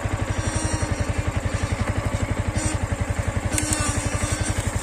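Yamaha MT-15's single-cylinder engine idling with a fast, even pulse, and a few short, faint high-pitched chirps over it. The owner calls this unwanted 'kich kich kich' squeak and cures it by fitting two new rubber boots.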